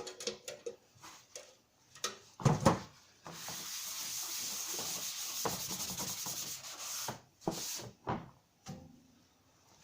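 Workshop handling noises: a few knocks, then a steady rubbing hiss lasting about four seconds, then more scattered knocks.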